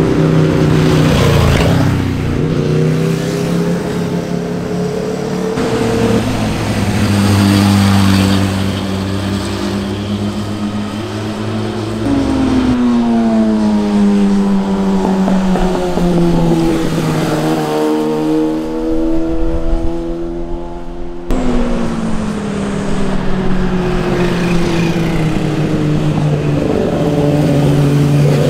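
Motorcycle engines passing one after another, the pitch climbing as they accelerate and sliding down as each goes by, with one long falling drop in the middle. The sound changes abruptly about three-quarters of the way through.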